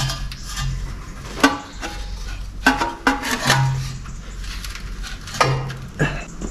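Metal-on-metal clanks and knocks from tools and parts being handled at a pickup's chassis: about half a dozen sharp, ringing strikes at irregular intervals over a low steady hum.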